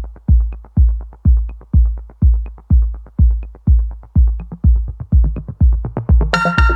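Electronic background music: a steady deep kick drum at about two beats a second with light ticks above it. A bright synth chord comes in near the end.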